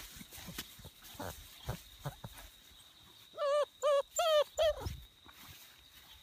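Bernese Mountain Dog puppy giving four short, wavering, high-pitched whines in quick succession, about three and a half seconds in, with soft rustling of movement in grass around them.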